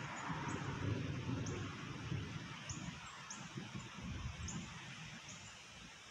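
Storm wind gusting through trees, the leaves rustling, with low gusty wind noise on the microphone that eases toward the end. Over it a small bird gives short high chirps that drop in pitch, about once a second.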